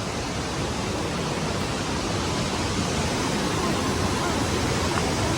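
Steady rushing of a waterfall, growing slightly louder.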